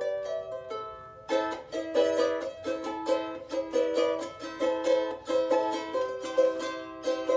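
A small, high-pitched plucked string instrument playing a melody. About a second in, the playing becomes fuller and louder, with quick repeated picked notes.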